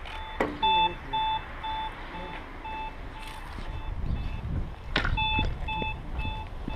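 Electronic beeping at about three beeps a second, the acoustic signal of a pedestrian crossing light. Midway a low rumble swells under it, with a single knock.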